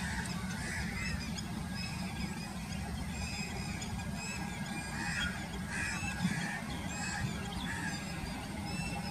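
Steady low rumble of an Airbus A320-214's CFM56 jet engines at low thrust as the airliner taxis and turns on the runway, with a series of short honking bird calls over it.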